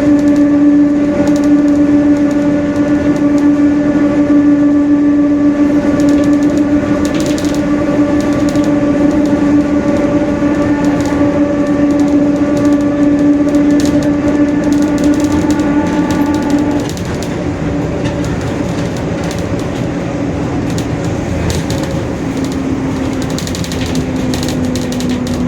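Mercedes-Benz OF-1721 bus's differential whining while the bus drives, a loud steady gear whine that cuts off suddenly about two-thirds of the way through, leaving quieter running noise; a fainter, lower whine comes back near the end. The whine is the sign of a noisy differential.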